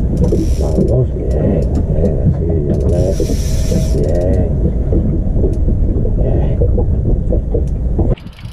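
Spinning reel being cranked against the load of a bent rod, its gears and handle making a ratcheting mechanical whir, over a heavy low rumble that cuts off suddenly near the end.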